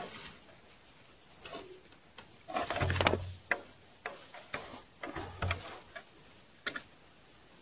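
Handling noises aboard an inflatable boat: scattered light clicks and knocks, with two dull thumps about three and five and a half seconds in.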